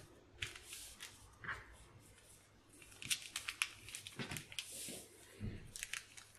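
Paper pattern pieces rustling and crinkling under the hands while pins are worked through the paper into rib-knit fabric, in a series of short, soft rustles and small clicks.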